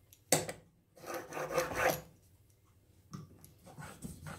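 Steel chisel rubbed flat on a fine sharpening stone to take the burr off the back of a freshly honed edge. A sharp knock as it is set down, then one long scraping stroke of about a second, and shorter, fainter strokes near the end.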